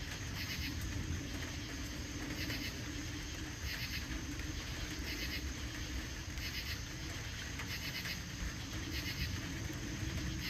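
Crickets chirping, short pulsed chirps repeating about once a second, over a steady low background rumble.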